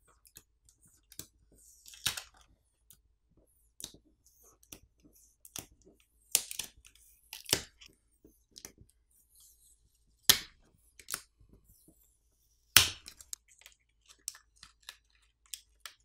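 Plastic pull-tab adhesive pouch being peeled out from under a Samsung Galaxy A56 smartphone battery: scattered small crackles and ticks, with about five sharper snaps, as the battery comes free of the frame.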